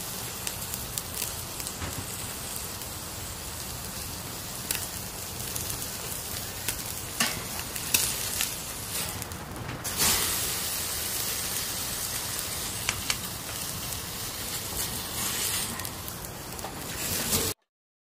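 Meat sizzling on a wire grill over hot charcoal: a steady hiss with scattered crackles and pops. It grows louder about halfway through and cuts off suddenly near the end.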